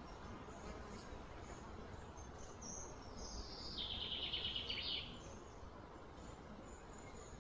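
Outdoor ambience with a steady low background noise; about three seconds in a bird calls, a falling high note that runs into a fast trill lasting a little over a second.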